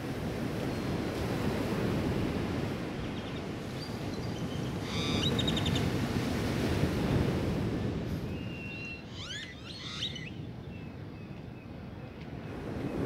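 Low waves breaking and washing up a sandy beach, swelling and easing. Birds call over it: a quick run of chirps about five seconds in, and a few sliding whistles around the ninth to tenth second.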